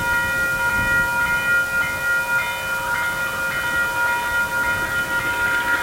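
Train hauled by DXC class diesel-electric locomotives, running with a low rumble under several steady high-pitched tones held throughout.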